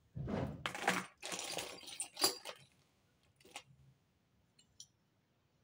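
Hands rummaging through a pile of costume jewellery: metal pieces clinking and rustling against plastic bags for the first two seconds or so, then a few single sharp clicks and small taps.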